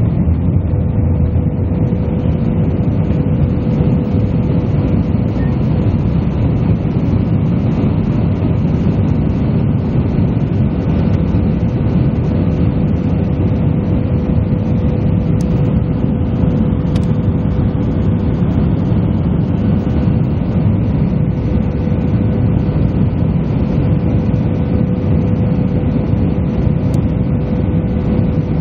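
Cabin noise of an Airbus A319 climbing out just after takeoff: its jet engines and the airflow make a steady, loud rumble, with one constant tone held through it.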